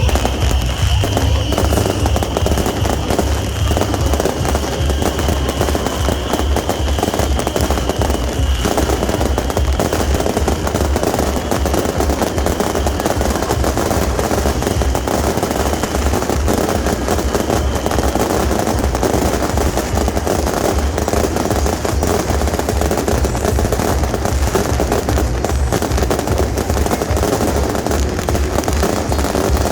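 Beehive rocket barrage (蜂炮): a dense, unbroken rapid-fire crackle of rockets and firecrackers going off without a pause throughout.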